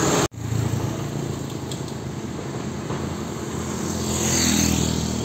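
Road traffic on an uphill highway. A loud stretch cuts off abruptly just after the start. Then heavy diesel truck engines run low and steady, and a vehicle passes close about four seconds in, loudest then and fading after.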